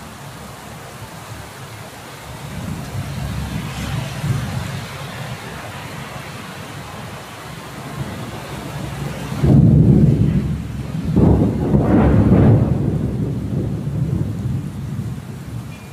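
Steady heavy rain with thunder: a low rumble swells about a third of the way in, then a loud thunderclap breaks suddenly a little past halfway and rolls on in a second peak before slowly fading.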